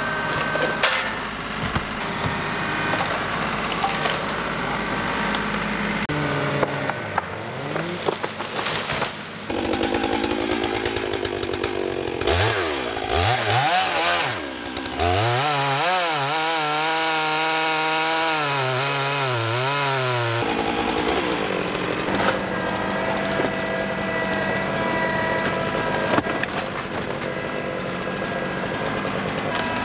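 Gas Stihl chainsaw cutting into a large oak trunk, its engine pitch rising and falling as the chain loads up in the wood and frees again. The sound changes abruptly several times.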